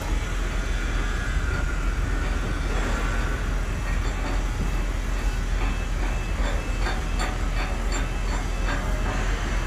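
Mobile crane's diesel engine running steadily, with a run of short metal clanks, about three a second, starting about halfway through.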